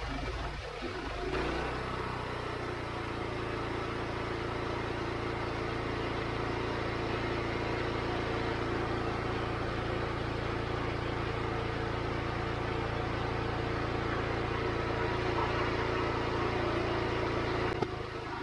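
Wood-Mizer LX25 sawmill's engine running steadily at an even pitch as it drives the band saw through the log. The steady engine tone settles in about a second in.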